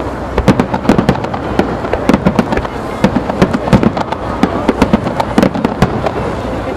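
Star mine fireworks barrage: many shells bursting in quick, overlapping succession, several sharp reports a second over a continuous rumble.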